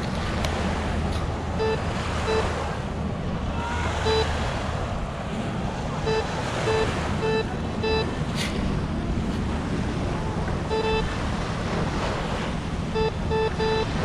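A White's metal detector giving short, same-pitched beeps, one at a time or in quick runs of two or three, as it sounds off over a buried metal target. Wind on the microphone and surf run underneath.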